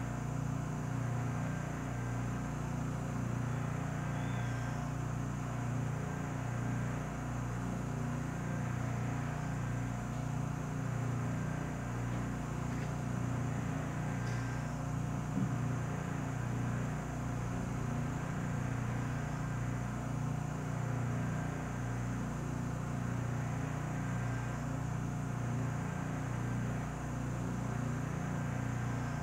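Steady, unchanging machine hum from an SST 2200 Turbo vacuum furnace holding its chamber under high vacuum while it cools, its vacuum pumping running continuously.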